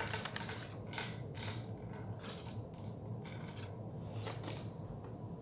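Cardboard packaging being handled and set down on a wooden table: a series of short rustles and light scrapes, over a faint steady hum.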